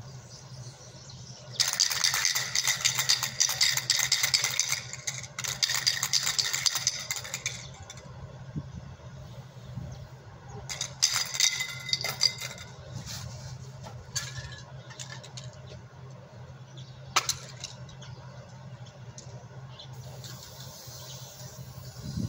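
Metal rattling from black hermetic refrigeration compressors in two loud bouts, one starting about two seconds in and lasting some six seconds, a shorter one about halfway through, over a steady low hum. A single sharp click comes about three-quarters of the way through.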